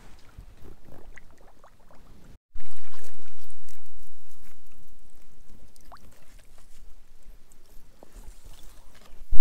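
A person wading through shallow swamp water, the water sloshing and splashing with each step.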